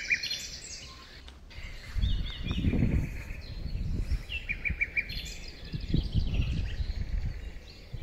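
Several small birds singing in a flooded forest. A run of four quick repeated notes comes about four and a half seconds in. Under the birds there is an on-and-off low rumbling noise.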